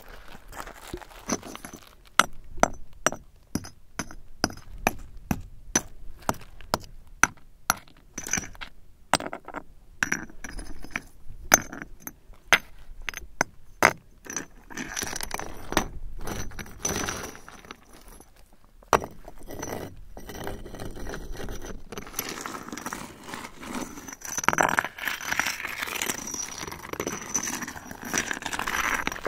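Pieces of glassy copper slag clinking and chinking against each other in quick, irregular knocks. About halfway through this gives way to a rougher, denser crunching and scraping of slag and stones.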